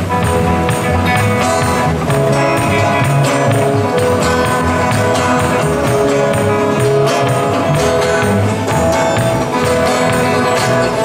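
Live acoustic folk-rock band playing an instrumental passage: two steel-string acoustic guitars strumming in a steady rhythm with a keyboard, and long held notes sustained above them.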